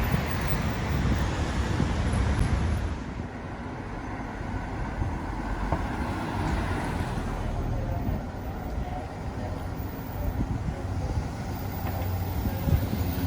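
City street traffic: steady road noise from passing vehicles, louder for the first three seconds and then lower.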